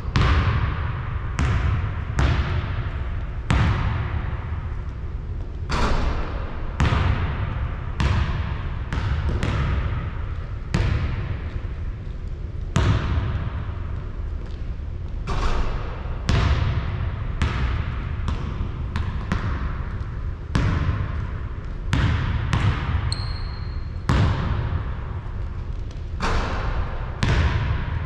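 A basketball bouncing again and again, roughly once a second, each bounce a sharp smack that echoes away. Late on there is one short high squeak.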